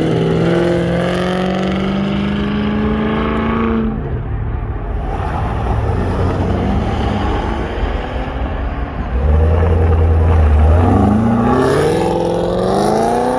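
Car engine revved hard, its pitch climbing steadily for about four seconds and then breaking off into a rough, noisy stretch. Near the end it settles low briefly, then climbs again.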